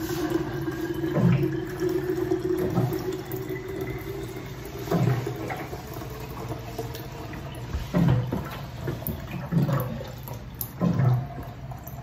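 Water running from a Frigidaire bottled-water cooler's tap into a plastic bottle, with several short glugs from the upturned jug as the bottle fills.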